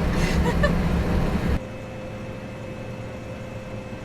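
Heavy farm machinery engine droning steadily, heard from inside the cab. About one and a half seconds in it cuts abruptly to a quieter engine drone with a steady high whine.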